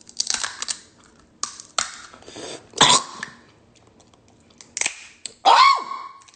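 A man coughing and clearing his throat in several short bursts, the loudest about three seconds in, then a short voiced sound near the end: he is trying to clear a piece of seafood shell that he felt go down his throat.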